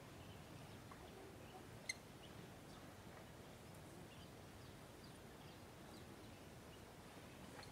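Near silence: faint open-air ambience with a few faint, scattered bird chirps and one brief sharp click about two seconds in.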